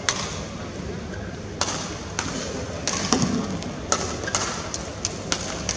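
Badminton play: sharp racket hits on the shuttlecock and footfalls on the court, roughly one a second, over the steady murmur of an arena crowd.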